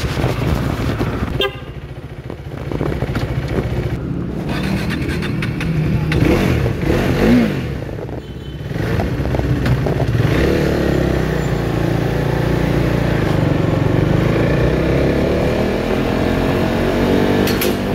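KTM motorcycle engine running as the bike is ridden, its engine note rising steadily through the second half as it speeds up.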